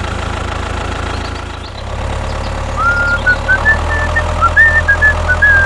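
Tractor engine idling with a steady low rumble that dips briefly before two seconds in and then carries on. From about three seconds in, a string of short high chirps sounds over it.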